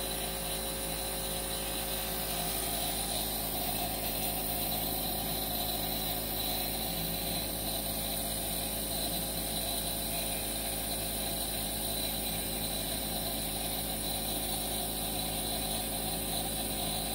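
Compressor nebulizer's small pump motor running steadily with a constant buzzing hum.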